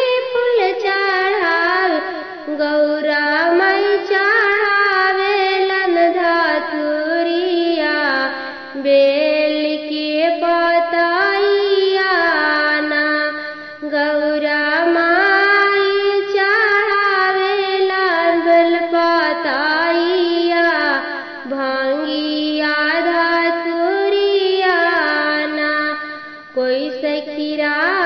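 A woman singing a traditional Bhojpuri Teej vrat folk song, in long melodic phrases with short breaks for breath.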